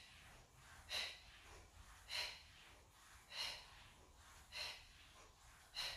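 A woman's short, forceful exhalations, five in all at about one every 1.2 seconds, paced with rapid chest-lift pulses: exertion breathing during a Pilates abdominal exercise.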